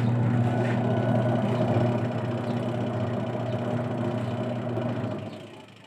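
Washing machine running with a loud, steady motor hum and mechanical noise. This is the abnormal noise that is the fault to be fixed. The sound dies away about five seconds in.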